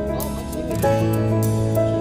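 Background music: soft, gentle track with held notes and a bass line.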